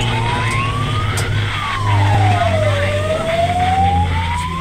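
Fire engine siren wailing in slow sweeps: it rises, falls, then rises again, over the steady low drone of a truck engine, heard from inside the cab.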